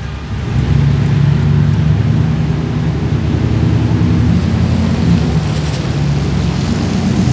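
Steady low rumble and hum of street traffic, a vehicle engine running close by, coming up about half a second in.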